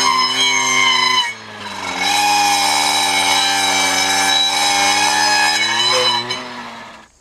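Echo handheld two-stroke power tool running at high revs while clearing brush. It eases off briefly about a second in, winds back up, then slows near the end and drops away.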